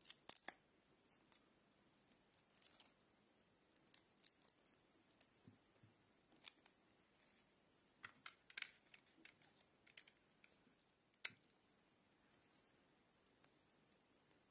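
Coaxial cable's aluminium foil shield and fine wire braid crinkling and rustling as fingers peel and fold them back, in scattered short clicks and scratches, the sharpest about eleven seconds in.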